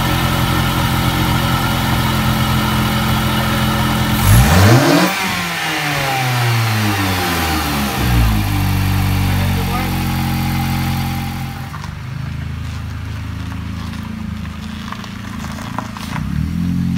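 Dodge Avenger's 2.4-litre four-cylinder engine idling with a newly fitted Evo X intake manifold, revved sharply once about four seconds in and settling back down, with a smaller blip near eight seconds. About two-thirds of the way through it is heard from outside the car, idling more quietly and duller.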